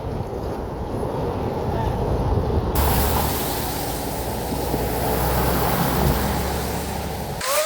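Wind rushing over the microphone with road noise while riding, a steady deep rumble; about three seconds in it turns suddenly hissier.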